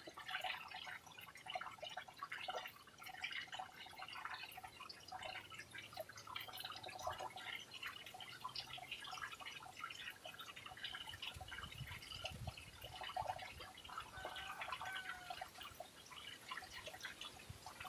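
Small bird chirping and twittering in a quick run of short, high notes, with a brief whistled note about fifteen seconds in.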